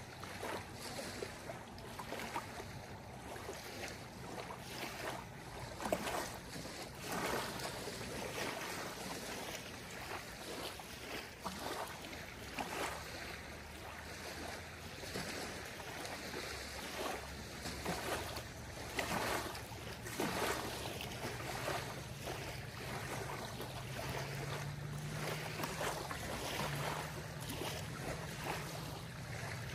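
Small lake waves lapping and splashing on a gravel shore, irregular splashes every second or so over a steady wash of water and light wind.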